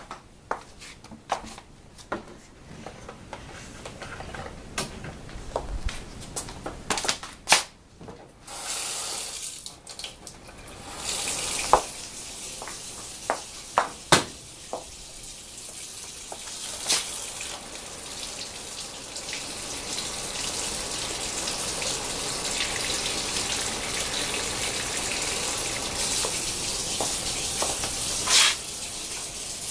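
A few clicks and knocks, then a water tap is turned on about eight seconds in and runs steadily, slowly growing louder toward the end.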